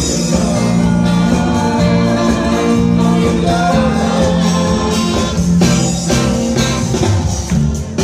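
A band playing a rock song, with guitar and a singing voice over a steady, loud accompaniment.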